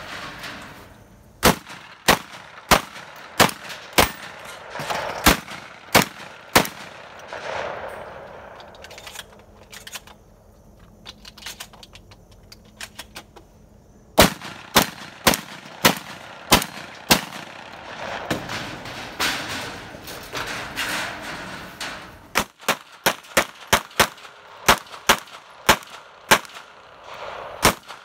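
Gunshots from a long gun fired in strings during a 3-gun stage run. In the first nine seconds the shots come about every half-second to second; a pause of about five seconds follows, then six quick shots, another pause, and a faster string of about three shots a second near the end.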